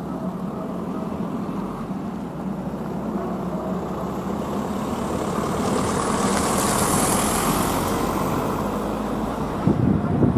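AŽD ZV-01 electronic level-crossing bell ringing its repeating warning tone while the crossing is closed, over a vehicle rumble that grows louder through the middle. Gusts of wind hit the microphone near the end.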